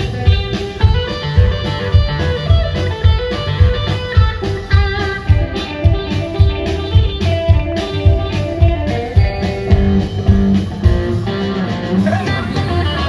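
Background music: a guitar-led blues-style track with a steady drum beat.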